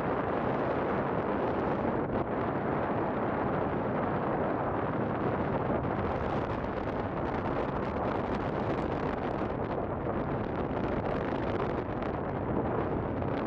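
Wind rushing over the microphone, over the steady low drone of a coaster ship's engine under way.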